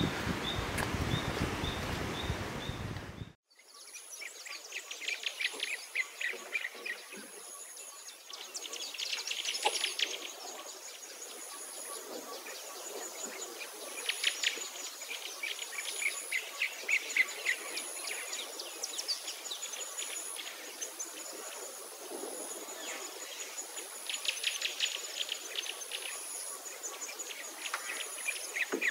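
Forest birds calling and singing over a very high insect chirr that pulses about once a second. The first few seconds hold wind buffeting the microphone, which cuts off suddenly.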